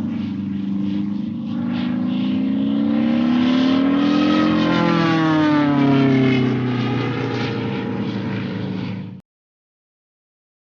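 A motor engine's steady pitched running, rising in pitch to a peak and falling back down, then cut off abruptly, followed by silence.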